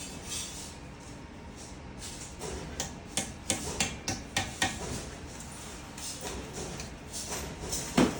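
Metal parts of a microwave stand knocking and tapping together during assembly: a quick run of about eight sharp taps a couple of seconds in, lighter clicks after, and one louder knock near the end.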